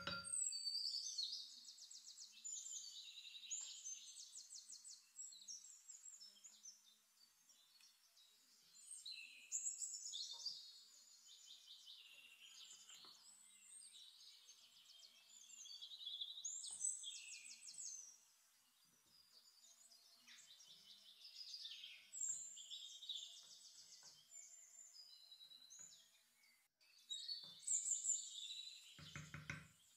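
A songbird singing bright, high trilling phrases, one burst every six or seven seconds, with faint soft ticks in between. A short low tone sounds just before the end.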